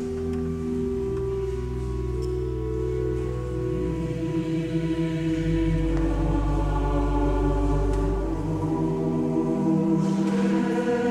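Choir singing slow, sustained chords that echo in a large stone cathedral. The chords shift every second or two and swell louder about halfway through.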